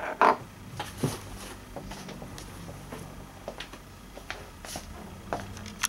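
Wooden dowel with ring magnets set down on a wooden tabletop: a couple of sharp knocks at the start and another about a second in, then a few faint light taps and clicks.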